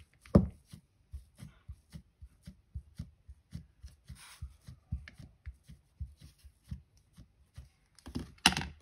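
A stamp set down on the card stock with one sharp knock, followed by a run of light taps, about three a second, as it is inked and stamped on paper, with a brief rustle of paper partway through and another knock near the end.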